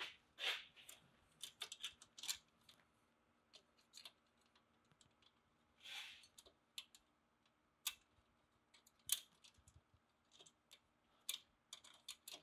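Faint, irregular clicks and light scrapes of small metal parts being handled and fitted by hand onto an exhaust bracket and clamp, with a few sharper clicks now and then.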